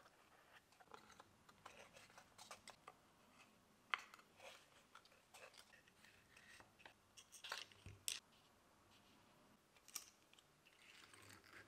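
Faint small clicks, snaps and scratches of crossover parts being handled: wire leads of capacitors and resistors pushed through holes in a plywood board and bent into place. A sharp click about four seconds in and a busier run of clicks a little before eight seconds are the loudest.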